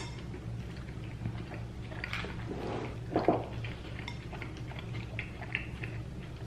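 Light clicks and scrapes of cutlery on a plate while eating salad, with a couple of louder eating sounds in the middle. A steady low hum runs underneath.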